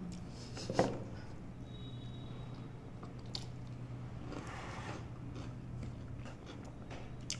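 Soft chewing and eating sounds of people eating rice and curry with their hands, with a few faint clicks over a steady low hum.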